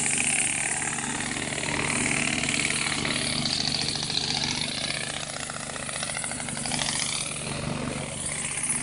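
Air compressor running steadily, with the fast, even rattle of pneumatic olive-harvesting shakers beating fruit off the trees.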